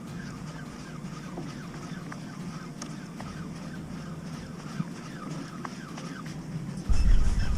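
Many short, repeated bird chirps over a steady background hiss. A much louder low rumble cuts in abruptly near the end.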